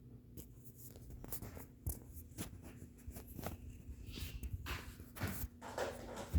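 52-inch Kichler Basic Pro Series ceiling fan starting up: a faint steady motor hum under irregular clicks and swishes that grow louder as it gathers speed.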